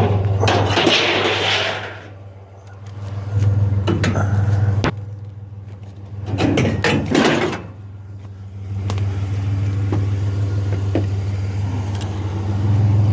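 Truck engine idling steadily, with bursts of rattling and handling noise and a sharp knock about five seconds in as scrap is picked up and loaded.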